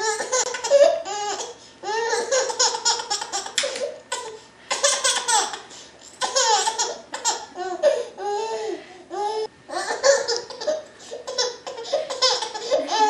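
A baby laughing hard, in a string of quick bursts of belly laughter with short breaks to catch breath.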